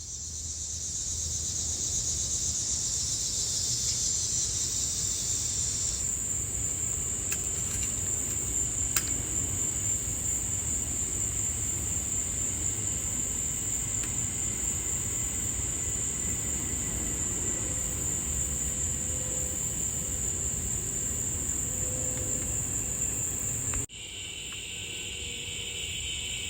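A chorus of insects chirring steadily at a high pitch over a low rumble; one layer of the chorus cuts out about six seconds in. After a brief dropout near the end, a lower-pitched insect layer comes in.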